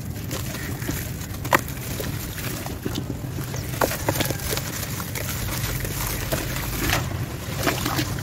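Dry sand-cement chunks crumbling in bare hands, the powder hissing and pouring into a plastic tub, with scattered sharp cracks as pieces snap, the loudest about a second and a half in. A steady low rumble runs underneath.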